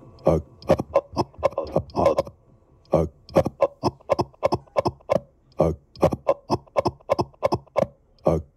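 Irregular sharp taps or knocks, about three a second with a short pause a little after two seconds in, each carrying a brief ringing tone.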